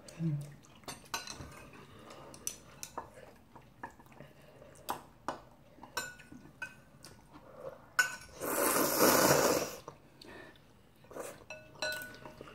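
Metal spoon and chopsticks clinking and scraping against porcelain bowls of instant ramen, in scattered sharp clicks. About two-thirds of the way in comes a loud slurp of noodles lasting over a second.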